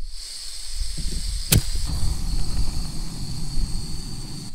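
Backpacking gas canister stove being lit: gas hissing from the burner, a single sharp ignition click about one and a half seconds in, then the burner flame burning with a steady low rush under the hiss.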